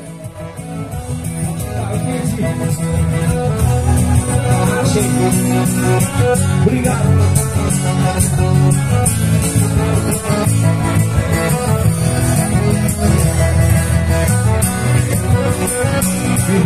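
Live acoustic music: two acoustic guitars strumming with singing over a steady percussive beat. It fades in over the first couple of seconds.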